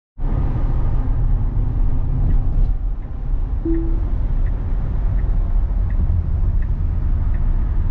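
Car interior road and engine noise while driving, a steady low rumble. A faint tick repeats about once every 0.7 s from about two seconds in.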